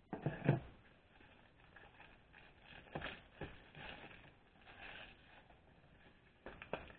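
Plastic toy packaging crinkling and clicking as a Lost Kitties Kit-Twins pack is worked at by hand and resists opening, with sharper clicks near the start, about three seconds in, and near the end.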